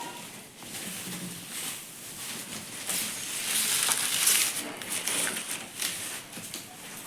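Packaging being handled: crinkling and rustling of plastic wrap or foam with small clicks and knocks, loudest around the middle.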